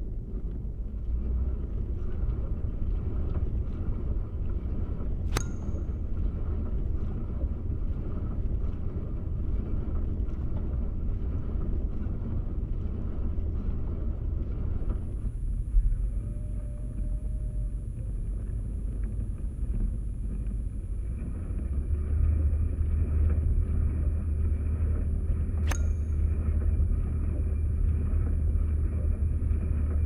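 Kitchen dishwasher running, heard through contact microphones on its stainless steel door: a steady low churning rumble, with two sharp clicks, one about five seconds in and one near the end. About halfway through the sound changes as the recording switches to a different contact microphone, and a faint high steady tone comes in.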